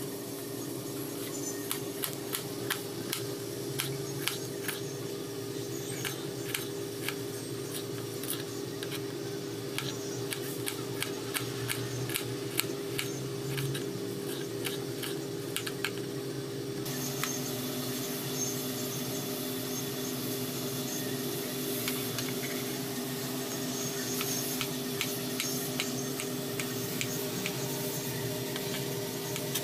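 A kitchen knife slicing shallots and then a tomato on a plastic chopping board: irregular sharp taps of the blade against the board, over a steady low hum.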